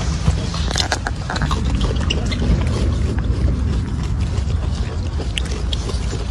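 Steady low rumble of wind buffeting the microphone, with scattered small clicks and ticks over it.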